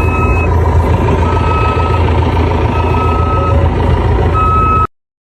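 Heavy vehicle's engine running with a low rumble while its reversing alarm beeps repeatedly, one beep about every second and a half. The sound cuts off suddenly near the end.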